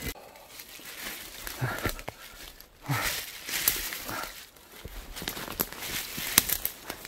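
Footsteps crunching and scuffing irregularly over wet leaf litter and loose stones on a steep slope, with brushing against branches and undergrowth.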